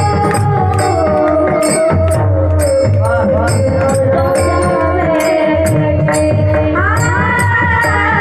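Bhairavi sung by a solo voice that holds long notes and slides between them with quick ornaments, over a steady drone. Tabla keeps time underneath, with regular sharp high beats on top.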